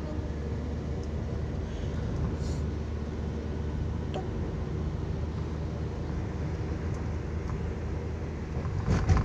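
Steady low rumble of a taxi's engine and road noise heard from inside the cabin while driving, with a brief louder thump near the end.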